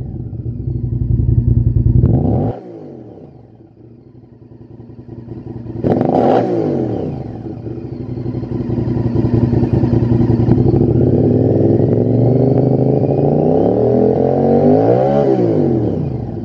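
Honda VTR1000's V-twin engine running through a Lextek SP1 aftermarket silencer while the bike stands still. The revs rise and fall back to idle a couple of seconds in, a sharp throttle blip comes about six seconds in, then the revs climb and are held high for several seconds before dropping back near the end.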